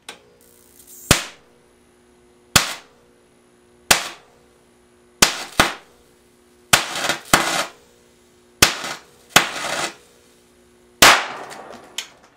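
High-voltage capacitor bank (5.5 kV, 50 µF) discharging through a tomato between two electrodes: about a dozen sharp, loud cracks at irregular intervals, some trailing off in a brief crackle. A steady hum and a faint high whine sound beneath them. The last crack is the loudest and has the longest tail as the tomato bursts, and the hum stops soon after.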